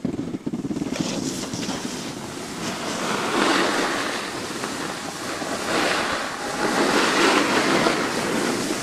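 Wind rushing over the microphone with the hiss of a snowboard sliding through powder snow, swelling louder and fading several times.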